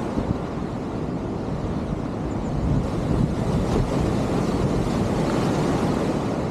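Wind buffeting the microphone over the steady wash of sea surf against a breakwater: a continuous low rumbling noise with no distinct events.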